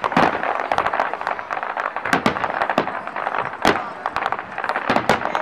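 Fireworks display going off: a rapid, continuous volley of sharp bangs and crackles from aerial shells, with a few louder bangs standing out, one a little before four seconds in.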